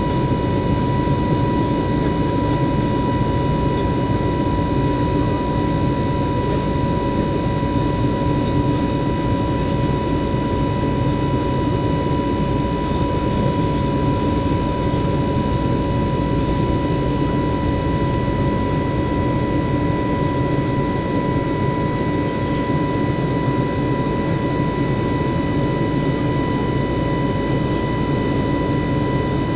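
Cabin noise of an Airbus A320neo climbing after take-off: its CFM LEAP-1A turbofan engines and the airflow make a steady rush with a steady high whine over it.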